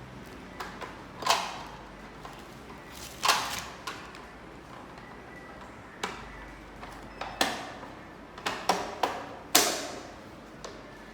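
Parts of a ring light being handled and fitted together: a series of irregular sharp clicks and knocks, the loudest about a second in, about three seconds in, and a cluster near the end.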